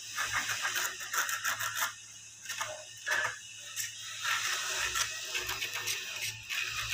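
Pen tip scratching over a rough-sawn wooden plank while tracing around a steel blade template, in bursts of rapid scratchy clicks with short pauses about two and three and a half seconds in.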